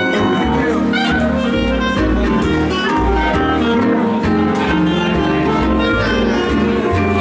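Country band playing live, an instrumental passage with guitar and fiddle over a steady, pulsing bass line; sliding notes come in about a second in.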